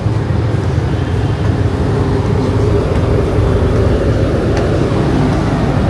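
Steady low machinery drone of the passenger ship KM Leuser under way at sea: a constant deep hum with a fainter, higher steady tone above it.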